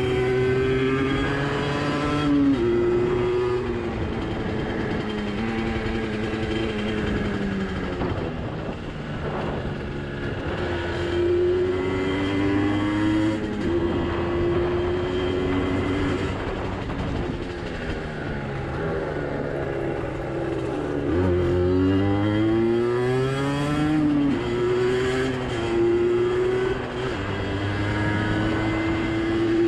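Junak Furious 50's 50 cc single-cylinder two-stroke engine, a copy of the Minarelli AM6, running under way. The revs hold steady for stretches and rise and fall with throttle and gear changes, with a sharp climb about three quarters of the way through. The engine is new and still being run in.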